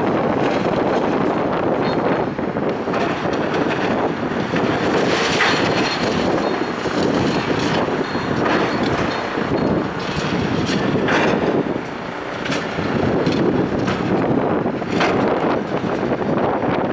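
Strong wind rushing over the microphone, with scattered knocks and clatter.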